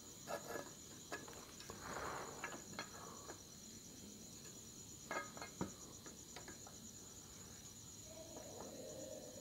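Crickets trilling steadily in the background, with scattered small clicks and taps from hand soldering of power-transistor legs on an amplifier board and heatsink, and a brief hiss about two seconds in.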